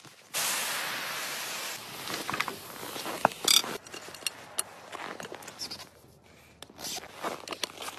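Steam hissing from an Afghan kazan pressure cooker as its pressure is let off, starting suddenly just after the start and fading over the next few seconds. Then metal clicks and scraping as the lid's clamp handle is worked and the lid comes off.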